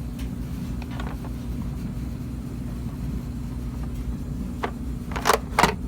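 Steady low rumble with two sharp clacks a little past five seconds in.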